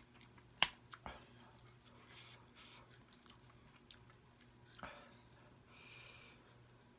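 Close-up chewing of a mouthful of instant noodles, with a few sharp clicks of a metal fork against the glass bowl about half a second to a second in as more noodles are lifted out. A short hiss comes near the end.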